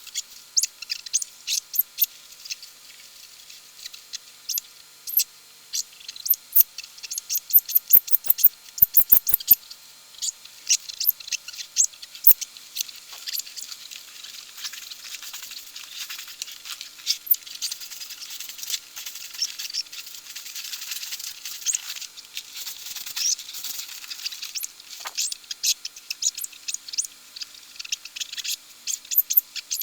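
Dense crackling rustle made of many small clicks, with a few soft knocks about a third of the way in.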